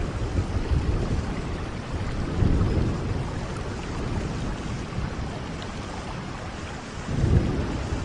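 Steady rain falling, with low rumbles of thunder swelling about two and a half seconds in and again, louder, near the end.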